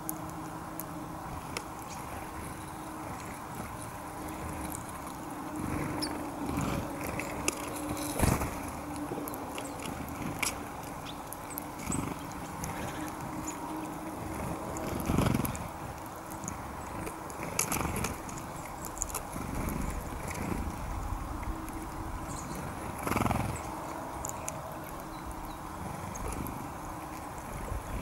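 Small finches, bramblings and chaffinches, feeding on scattered seed on snowy ground: many small pecking and seed-cracking ticks, with a few louder flutters of wings as birds land and take off, the loudest about halfway through.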